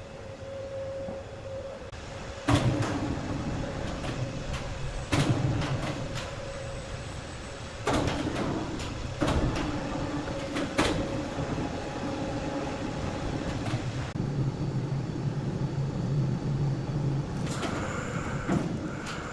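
Large sawmill wood saw machinery running with a steady hum, broken by several sudden loud knocks and clanks.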